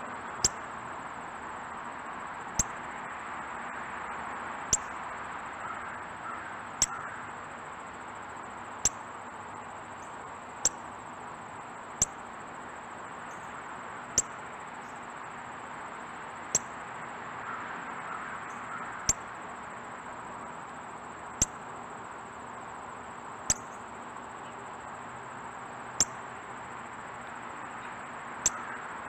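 Northern cardinal at a pile of sunflower hearts making sharp, loud clicks about every two seconds, over a steady background hiss.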